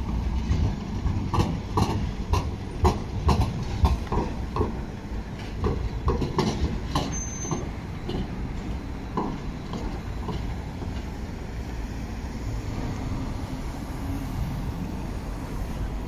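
Modern low-floor electric tram passing over the curves and crossings of a tram junction, its wheels knocking and clattering in quick, irregular clicks over a low rumble. The knocks thin out after about eight seconds, leaving a steadier rumble as the tram moves away.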